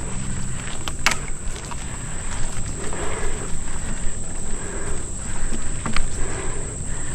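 Wind buffeting the microphone and a mountain bike rattling over the dirt trail while riding, with sharp knocks from the bike now and then, the loudest about a second in. A steady high-pitched insect drone runs underneath.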